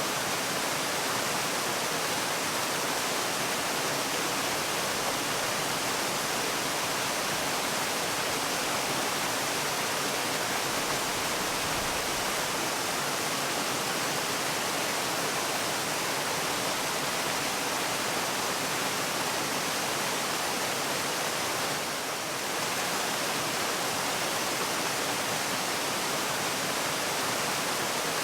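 Waterfall: a steady, even rush of falling water, a dense hiss heavy in the upper range, dipping slightly for a moment about three-quarters of the way through.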